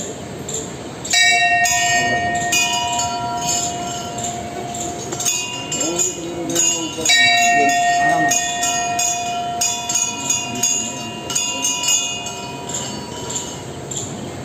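A temple bell rung by hand again and again: clanging strikes, each leaving a long ringing tone, starting about a second in and dying away near the end.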